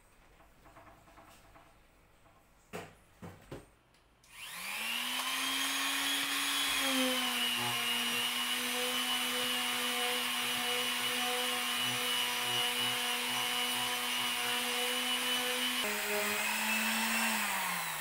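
Electric palm finishing sander switched on about four seconds in, spinning up to a steady whine and sanding the edge of a clamped stack of plywood, then switched off near the end, its pitch falling as it winds down. Before it starts, a few sharp clicks.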